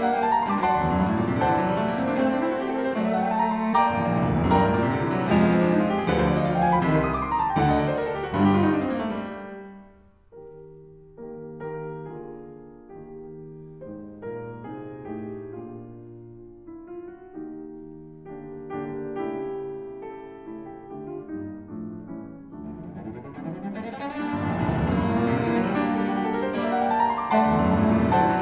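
Instrumental background music with piano and bowed strings: a full, loud passage that drops away about ten seconds in to a softer stretch of held notes, then swells back up near the end.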